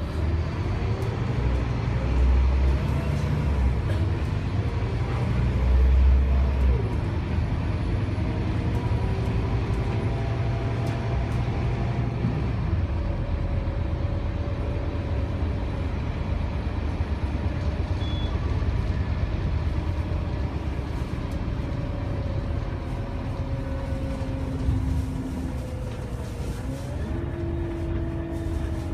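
Scania K280UB6 bus's 9.3-litre five-cylinder diesel engine with its ZF Ecomat six-speed automatic gearbox, heard from inside the passenger cabin while driving. The engine pitch rises and drops back several times as the bus accelerates and shifts gear, over a steady low rumble of engine and road.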